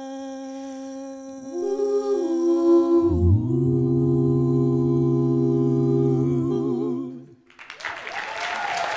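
A cappella vocal quartet of two men and two women holding the closing chord of a jazz arrangement, with inner voices moving before a low bass note joins just over three seconds in. The chord is released after about seven seconds, and audience applause starts near the end.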